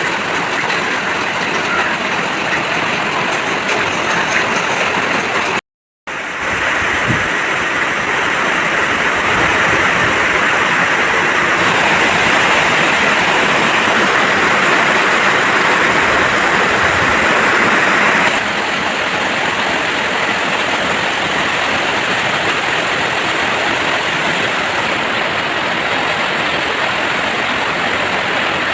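Heavy rain pouring steadily, a continuous loud hiss, cut off for a moment about six seconds in.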